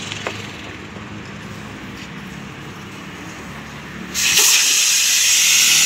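Air hissing out of a tractor's rear tyre through its opened valve stem, as the tyre is deflated before being filled with water ballast. The hiss starts suddenly about four seconds in and stays loud and steady.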